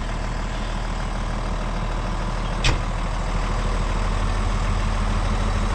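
Tractor engine idling steadily, with a single sharp knock about two and a half seconds in.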